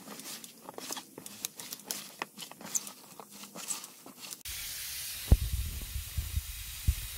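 Hands mixing moist coco coir and perlite in a plastic tub: a crackly rustle of many small crunches and clicks. About four and a half seconds in, this cuts abruptly to a steady hiss with low thumps.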